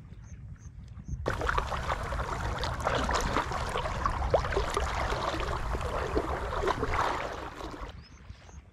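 Water splashing and sloshing close to the microphone, many small splashes and drips around an angler wading waist-deep while he plays a hooked snakehead. It starts suddenly about a second in and fades near the end.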